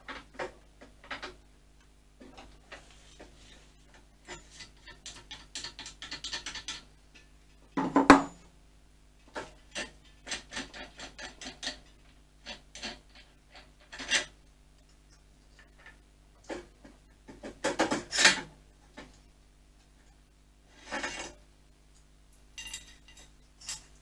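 Hand tools at work on a motorcycle's front end: runs of rapid ratchet clicks and metal parts clinking and scraping, with one louder metal knock about eight seconds in.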